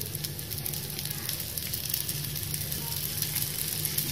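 Rava dosa frying on a hot pan, sizzling steadily with fine crackles from oil just spooned over the batter.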